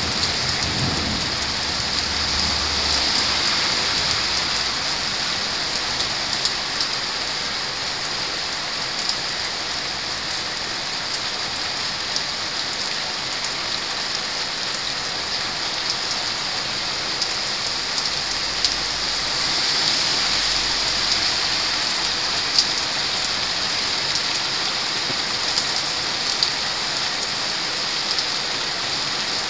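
Heavy rain falling steadily on roofs and a wooden balcony, a dense hiss with scattered ticks of single drops. A low rumble of thunder dies away in the first couple of seconds.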